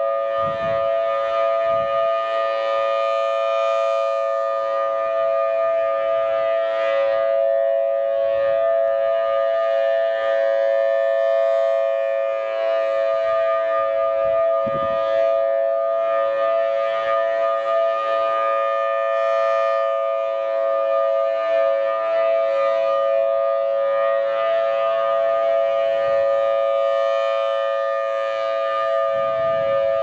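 Federal Signal Thunderbolt 1003 outdoor warning siren sounding a steady alert signal: a loud, unwavering chord of several tones held throughout, its rotating horn turning during the test.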